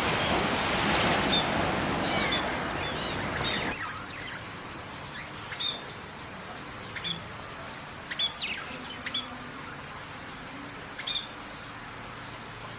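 Small birds chirping in short, sharp, downward-sliding calls. For the first few seconds they sit over a steady rushing noise that cuts off abruptly about four seconds in; after that the chirps come singly and scattered over a quiet background.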